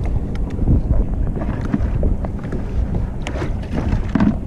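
Wind buffeting the microphone in a low, continuous rumble, with scattered light knocks and clicks throughout.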